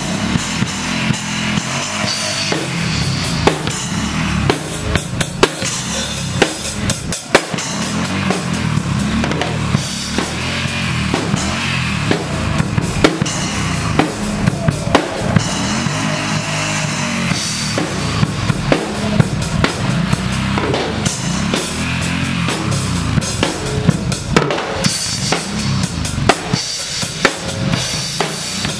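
Acoustic drum kit played live in a steady, dense beat: bass drum, snare and cymbals struck without a break.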